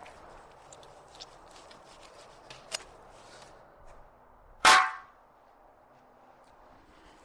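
A raw bison shank bone set down into a metal cauldron lands with a sharp clang and a brief ring about two-thirds of the way in. A lighter knock comes about a second before the halfway point.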